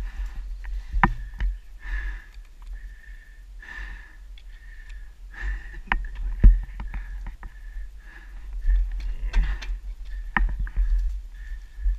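A dirt-bike rider's heavy, winded breathing inside his helmet, with scuffs and sharp knocks as he wrestles his fallen Kawasaki dirt bike in the brush; the loudest knock comes about halfway through.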